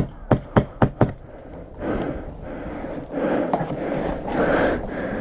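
Five sharp cracks within about a second, fired in quick succession like an airsoft rifle shooting semi-automatic, followed by fainter rustling and movement noise.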